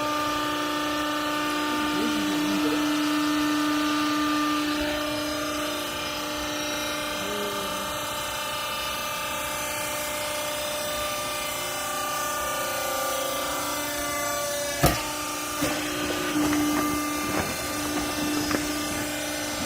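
Hydraulic baler's electric motor and hydraulic pump running with a steady hum. About three-quarters through there is one sharp knock, then several lighter clunks.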